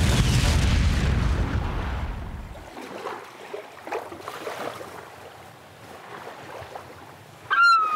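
Tail of a dynamite blast in a river: a loud low rumble that fades over about the first three seconds, then quieter water noise with scattered small splashes and ticks. Near the end, a short high-pitched falling tone.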